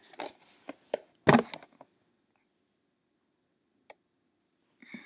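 Eyeshadow palette being handled and set down: a few light clicks and knocks in the first second and a half, the loudest about a second and a third in, then near quiet with one faint tick.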